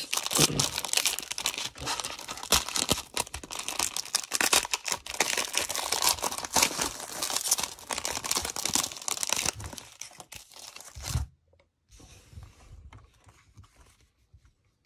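Plastic cellophane wrapper of a Panini Prizm basketball cello pack being torn open and crinkled by hand: dense crackling and tearing that ends with a soft thump about eleven seconds in, followed by faint handling rustles.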